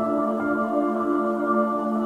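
Ambient background music of slow, long-held notes.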